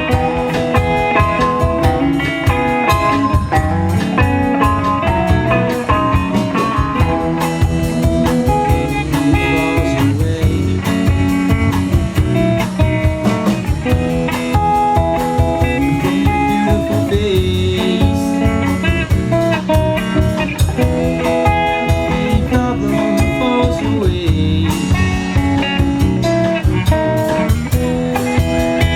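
A live band playing an instrumental passage of a blues-tinged rock song, led by guitar with bass and drums keeping a steady beat.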